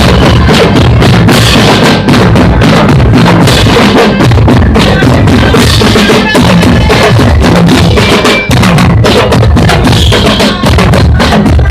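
Loud music with a steady, driving drum beat of bass drum and snare.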